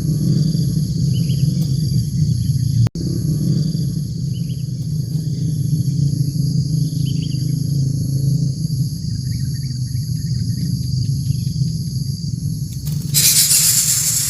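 Outdoor natural ambience: a steady high-pitched drone of several tones with scattered short bird chirps over a low hum. A loud hiss sets in about thirteen seconds in.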